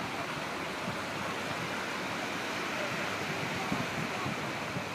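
Sea waves washing and breaking against a concrete harbour breakwater, a steady rushing wash, with a few low wind thumps on the microphone.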